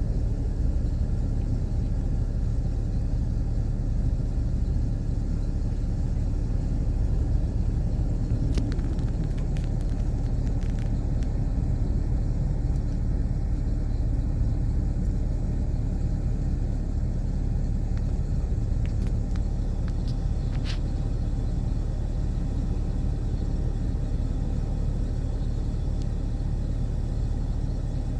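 Excavator's diesel engine running steadily, a low rumble, with a few faint clinks about a third of the way in and again about two-thirds through.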